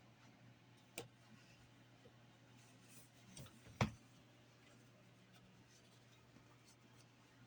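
Near silence over a steady low hum, broken by a sharp click about a second in and a louder knock a little before the middle.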